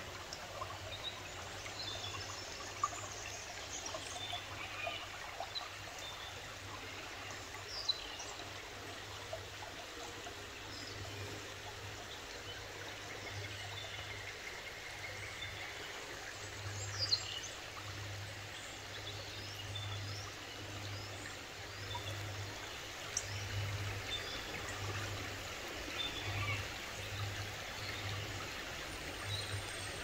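River water flowing steadily, with small birds chirping here and there over it and a low rumble coming and going underneath.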